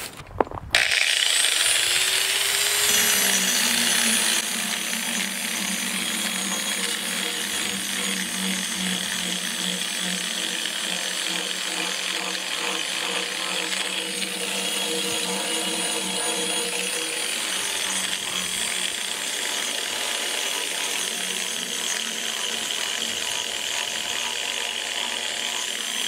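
Corded handheld grinder-polisher starting up about a second in with a brief rising whine, then running steadily as its pad sands the face of a concrete countertop.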